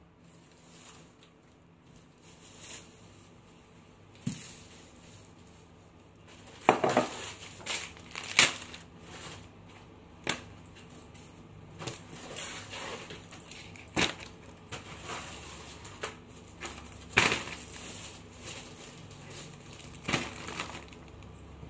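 Groceries being unpacked from a shopping bag: plastic packaging crinkling and rustling, with sharp irregular knocks as packaged items are set down on a hard countertop.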